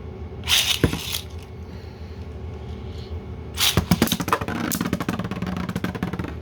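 Beyblade launch with a rasping rip of the launcher about half a second in, then the 3D-printed Holy Crusader and Buster Excalibur spinning tops clashing in a plastic stadium, a rapid run of clattering hits from about three and a half seconds on.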